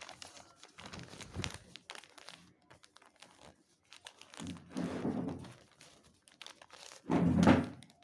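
A sheet of paper being folded and creased by hand, with crinkling and rustling. There are scattered small crackles, a longer rub about halfway through, and the loudest rub-and-press near the end.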